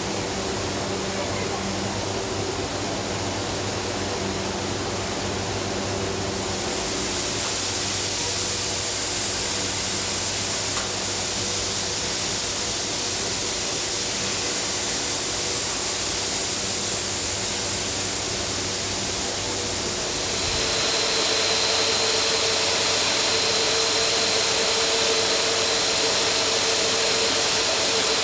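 Steady hissing rush from a steam locomotive. It grows louder about six seconds in, and again about twenty seconds in, when a thin steady whistling tone joins it.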